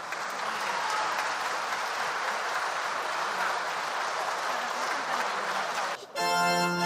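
Audience applauding at the end of a choir song. The applause cuts off suddenly near the end, and held organ-like notes begin.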